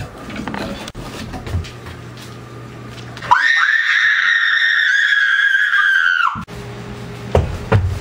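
A loud, high-pitched human scream, held at one pitch for about three seconds, starting about three seconds in and cutting off sharply.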